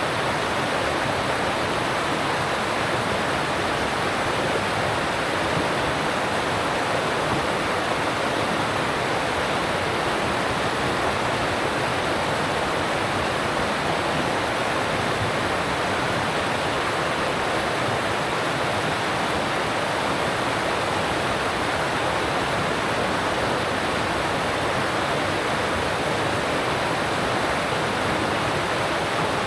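Alpine mountain stream rushing steadily over rocks, an even unbroken rush of water with no other sounds.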